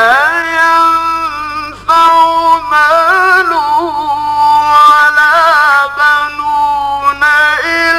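A man's solo Quran recitation in the melodic mujawwad style: one voice holding long, drawn-out notes that waver and bend in ornaments. There are brief pauses for breath at about two seconds in and near the end.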